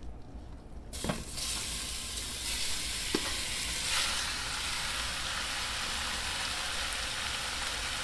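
Seasoned beef stew meat hitting a hot pot and sizzling as it sears. The sizzle starts suddenly about a second in and then holds steady, with a couple of light knocks early on.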